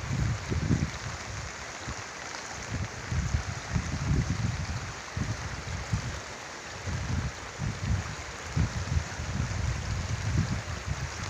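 Flooded river water rushing steadily, with irregular low rumbling gusts on the microphone.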